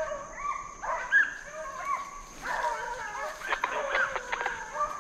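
A pack of deer hounds, Walker hounds and beagles, baying in several overlapping voices as they run a deer's track. The drawn-out bays rise and fall in pitch and follow one another without a break.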